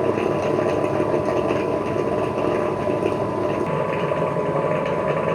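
Dreame L20 Ultra docking station washing the robot's mop pads before a cleaning run: a steady, a little loud motor-and-pump hum with a thin constant whine over it.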